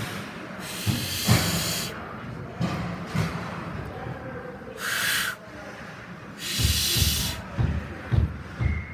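Ice hockey play on an indoor rink: several bursts of scraping hiss, typical of skate blades cutting the ice, mixed with scattered dull knocks of sticks and puck. The knocks come most often near the end.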